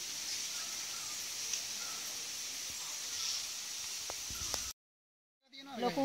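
Rainforest ambience: a steady high-pitched drone of insects with faint, repeated short bird chirps. It cuts off abruptly about three-quarters of the way through, and after a brief dead silence voices begin.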